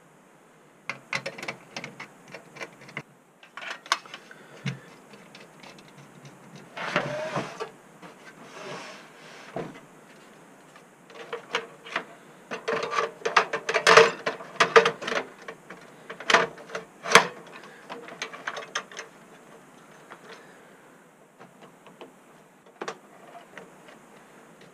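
Sheet-metal drive-bay cage being handled and seated in a desktop PC's steel case: an irregular run of clicks, clanks and rattles, busiest and loudest about halfway through.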